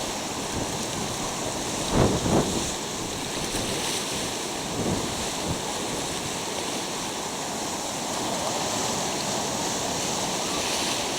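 Gulf surf breaking steadily, with wind buffeting the microphone; a couple of short low thumps about two seconds in.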